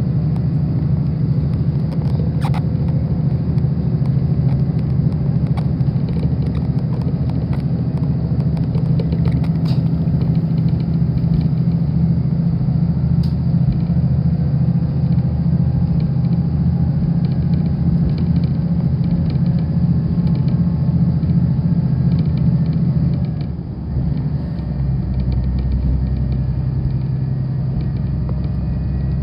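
Diesel railcar running, heard from inside the car: a loud, steady low engine drone. About 23 seconds in the sound briefly dips and the engine note then settles lower and steadier.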